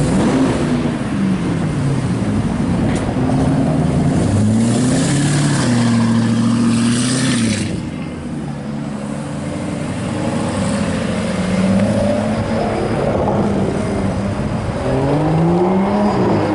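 Loud supercar engines revving and accelerating. The pitch falls just after the start, climbs and holds high for a few seconds before cutting off sharply about halfway through, and climbs again near the end.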